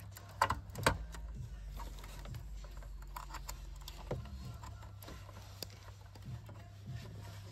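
Faint scattered clicks and knocks of hands working on car interior wiring and trim, over a low steady hum.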